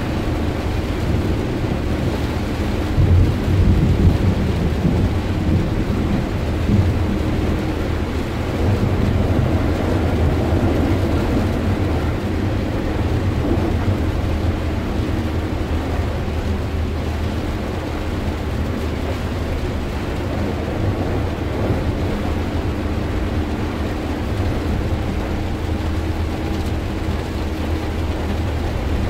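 Heavy rain falling on a moving car's roof and windscreen, heard from inside the cabin over a steady low rumble of tyres and engine.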